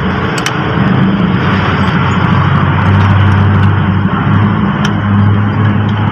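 An engine running steadily with a low hum, and a few light metallic clicks.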